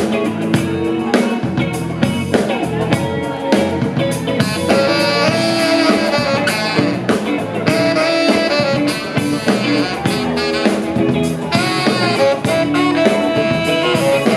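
Live band playing an instrumental passage: a saxophone carries the melody in held notes over drum kit and electric guitar.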